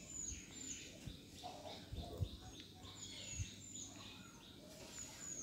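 Birds chirping: many short, high chirps that fall in pitch, repeated every fraction of a second, with a few faint low thumps.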